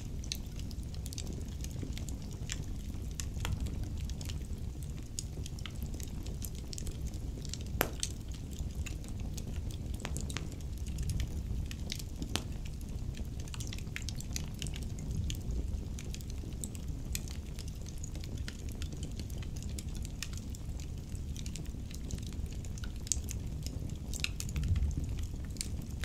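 Wood logs burning in a brick fireplace: irregular crackles and sharp pops over a low, steady rumble of the flames, with a few louder pops scattered through.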